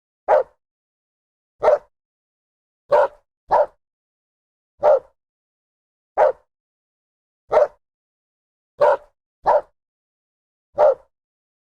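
Dog barking: about ten short, sharp barks at a steady pace of roughly one every second and a half, twice coming as a quick double bark, with dead silence between them.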